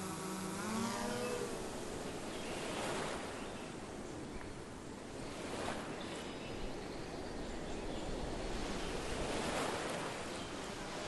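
A long, low pitched call that bends up and then fades out about a second and a half in, followed by a steady hiss-like background. A similar call starts again near the end.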